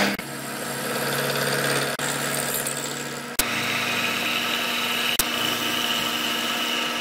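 Vertical milling machine running, its end mill cutting into a metal tube: a steady motor hum with cutting noise. The sound jumps abruptly a few times, and from about halfway a higher steady whine joins the hum.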